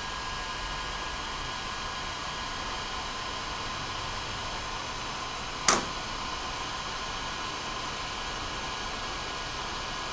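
Heat gun blowing steadily: a constant rush of air with a faint steady tone from its fan motor. It is heating a steel part to loosen a tight pin. A single sharp click about halfway through.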